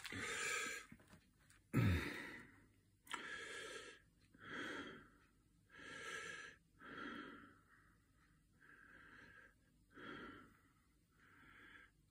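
Faint breathing close to the microphone: short breathy sounds about once a second, with a louder one about two seconds in.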